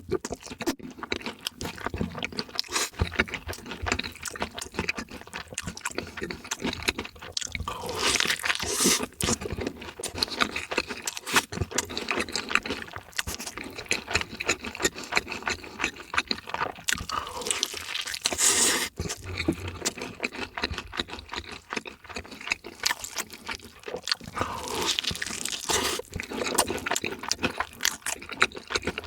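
Close-miked chewing and crunching of fried chicken food, with wet mouth sounds and a louder crunchy bite every several seconds.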